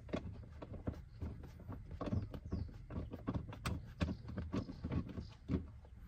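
Irregular light clicks and knocks of an Audi A8 D4 rear seat section and its metal frame being worked loose and lifted out by hand.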